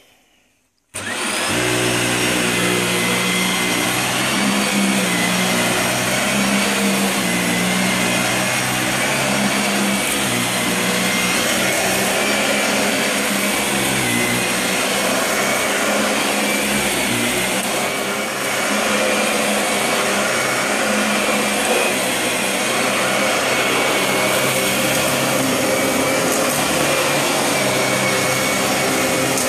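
Dyson DC40 upright vacuum cleaner switched on at max suction about a second in, then running steadily with a constant motor whine as its cleaner head is pushed over carpet.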